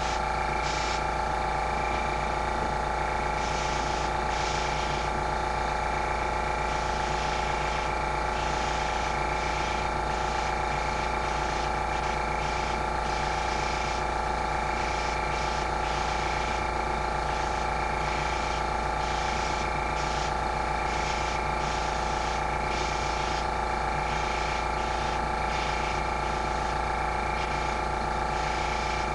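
A small air compressor runs steadily with a constant hum, under short, irregular bursts of hiss as an airbrush sprays paint.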